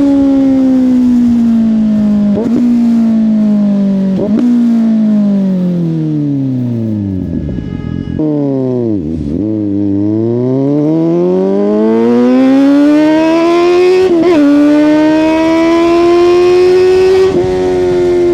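Suzuki GSX-S750's inline-four engine through a Yoshimura exhaust: the engine note falls steadily for about eight seconds as the bike slows, drops low briefly, then rises again under acceleration and levels off. There are short sharp blips in the note, twice during the slowing and twice during the pull.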